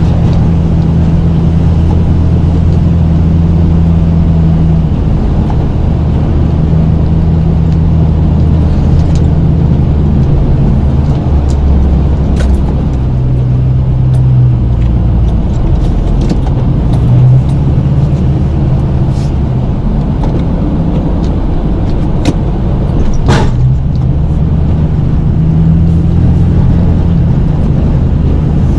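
Snow-plow truck's engine running under load as it pushes snow, its pitch shifting up and down as the driver works the truck, with a couple of brief knocks.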